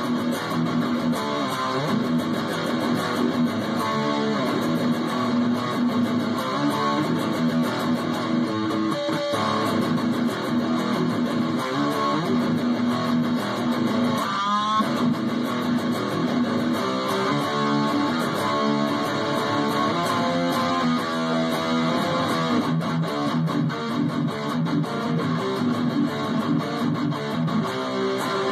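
Dean V electric guitar with a spalted maple top, played through an amp in continuous heavy metal riffs, with a quick upward slide about halfway through.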